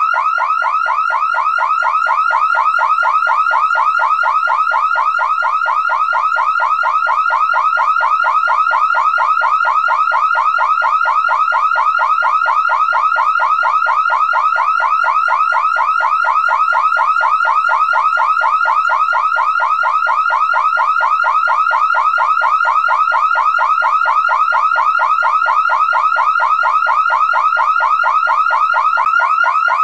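Car alarm sounding continuously: a loud, fast, unbroken series of rising electronic chirps, several a second, that never pauses.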